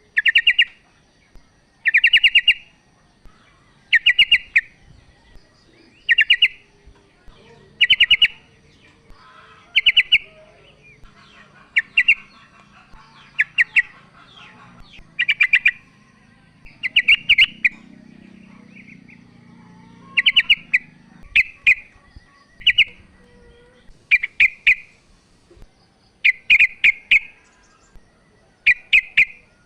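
Female yellow-vented bulbul (trucukan) calling: short phrases of quick notes, repeated every one to two seconds. This is the female's call to a male, used as a lure to get male bulbuls singing.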